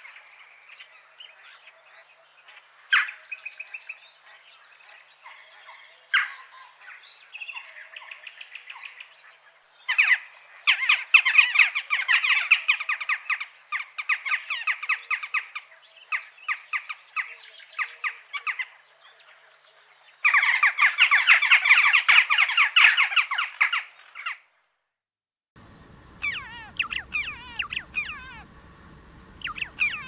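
Western jackdaws calling: scattered sharp calls at first, then a flock chattering densely from about ten seconds in. Near the end a different recording of red-billed chough calls begins.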